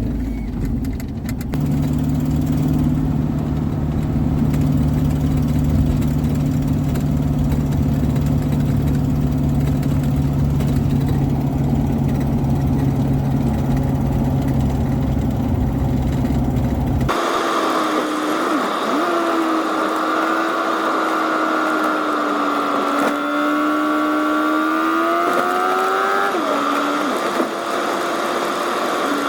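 A steady, low engine drone, then, after a sudden change about two-thirds of the way through, a higher engine whine whose pitch wavers up and down.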